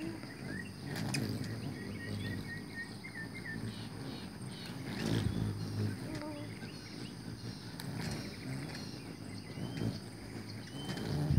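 Hummingbirds flying around a feeder: the hum of their wings swells about five seconds in and again near the end as birds pass close. Over it come quick runs of short, high chipping calls, early on and again near the end, as the birds squabble over the feeder.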